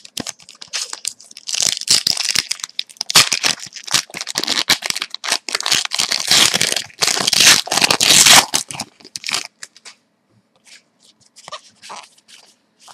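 Foil wrapper of a Score hockey card pack being torn open and crinkled: a dense run of crackling lasting about eight seconds. After that come a few soft clicks as the cards are flipped through.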